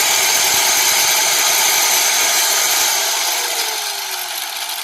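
A 100 mm, 850 W electric angle grinder running free, without cutting, with a loud, steady high whir. About three seconds in, its level begins to ease off and a faint tone in it slides downward, as the spinning slows.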